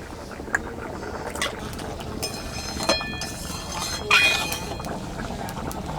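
Metal kitchen utensils clinking and knocking several times, about a second apart, with one strike leaving a brief metallic ring.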